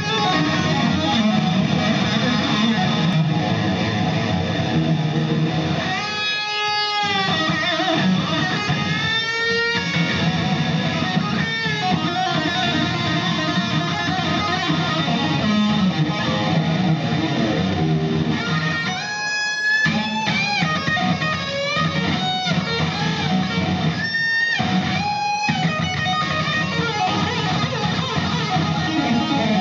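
Lead electric guitar played live through a concert PA, heard from the audience. It holds notes with several sweeping bends in pitch, at about six, ten, nineteen and twenty-five seconds in.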